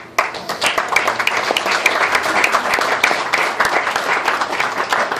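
A roomful of people applauding, with many hands clapping in a dense, irregular patter.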